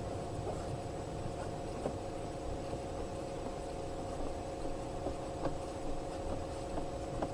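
Steady low mechanical hum with a few faint, scattered clicks as a perspex panel is pressed by hand onto its magnetic strip around a window frame.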